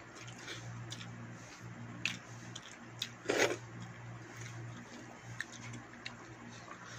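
Eating rice and curry by hand: fingers squishing and mixing rice on a steel plate, with chewing and mouth clicks. One louder short noisy sound about three and a half seconds in, over a steady low hum.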